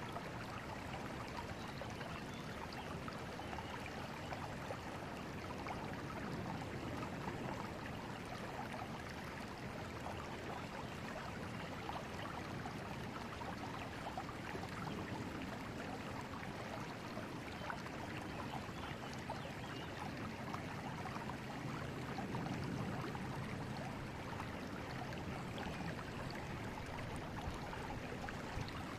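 A river flowing over rocks, a steady rush of water with a fine babbling texture.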